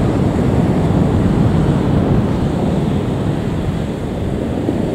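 Distant IAE V2500 engines of an Airbus A321 at takeoff thrust, a steady low rumble as the jet rotates and climbs away, mixed with wind on the microphone.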